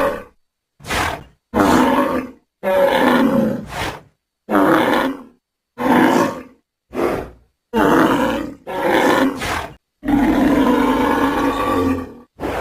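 A bull bellowing: about ten separate calls in a row with sharp silent gaps between them, most under a second, the longest about two seconds near the end.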